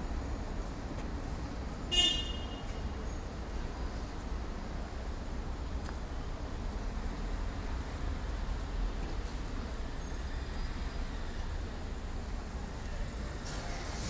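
Steady low rumble of outdoor traffic noise, with one short, high-pitched toot about two seconds in.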